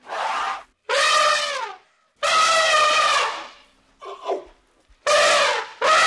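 Elephant trumpeting: five loud calls in quick succession, each under a second to about a second long and dropping in pitch as it ends, with a short, fainter call just past the middle.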